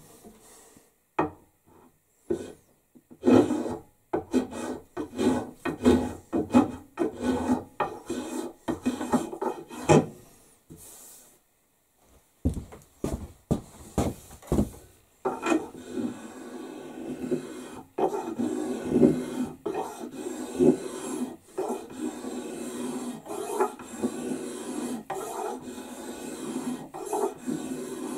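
A hand tool rasping and shaving along a wooden axe handle, thinning it down in many quick, irregular strokes. There are a couple of short pauses in the first half, and the strokes come more steadily in the second half.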